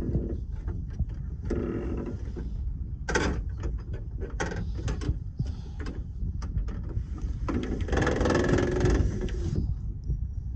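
Clicks, knocks and mechanical rattling from handling parts of a truck's cab, with two longer rasping stretches, one about two seconds in and a louder one near the end.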